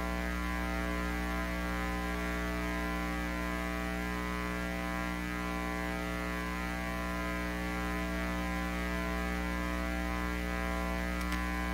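Steady electrical hum and buzz from a concert PA system with no music playing: a stack of even, unchanging tones. A couple of faint clicks come near the end.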